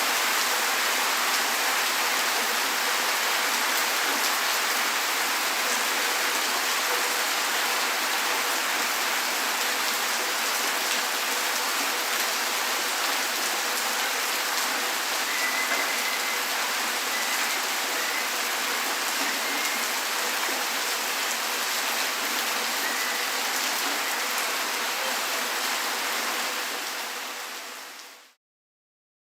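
Heavy rain falling on a city street: a steady, dense hiss of rain on pavement that fades out near the end.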